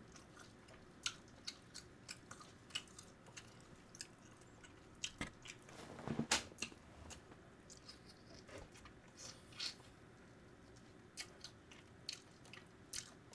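A person chewing and biting fried chicken: faint, irregular short crunches and mouth clicks, with a louder cluster about six seconds in.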